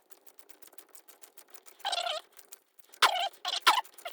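A 1/4-inch ratchet with a swivel and T20 Torx bit clicking rapidly as a small bolt is backed out, with a few louder bursts about two and three seconds in.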